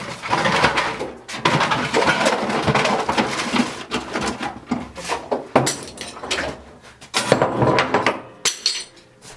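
Someone rummaging through a bag of tools, with rustling and the irregular clatter and knock of tools being shifted about.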